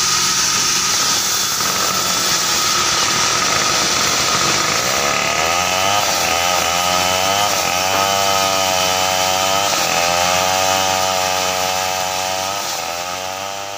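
Sawmill band saw running and cutting timber, a loud steady machine noise with a wavering pitched drone joining about a third of the way in; it fades out near the end.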